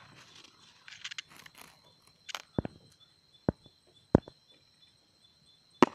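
Light scuffing, then four sharp, separate clicks spread over a few seconds, over a faint steady high-pitched tone.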